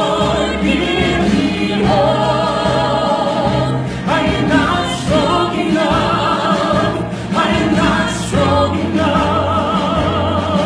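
Voices, sounding like a choir, singing long held notes with vibrato over musical accompaniment.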